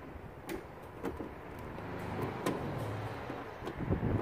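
Light clicks and scrapes of a hand nut driver turning a bolt through the tailgate's inner metal panel. A low rumble swells and fades in the middle.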